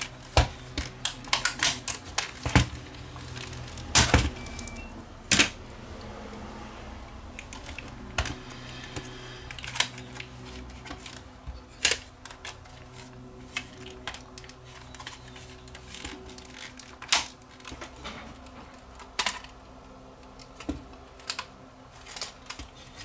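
Irregular clicks and taps of a small camcorder's plastic casing and internal parts being handled and lifted apart during disassembly, over a faint steady low hum.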